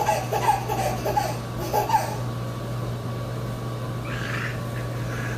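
A baby laughing and babbling in short bursts for about two seconds, then quieter, with a brief sound about four seconds in, over a steady low hum.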